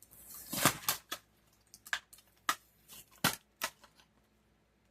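Plastic toy packaging being handled as small doll accessories are worked free: irregular clicks, crinkles and snaps, the loudest just under a second in and a little past three seconds.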